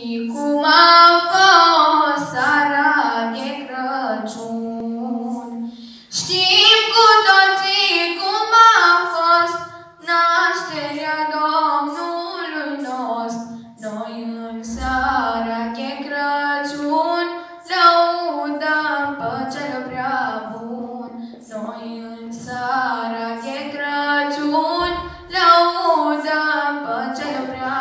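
Women's voices singing a Romanian Christmas carol (colindă), unaccompanied. It is one melody in long phrases with short breaks for breath.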